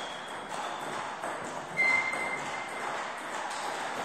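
Table tennis ball clicking off paddles and the table during a serve and short rally, a series of quick sharp knocks with the loudest about two seconds in.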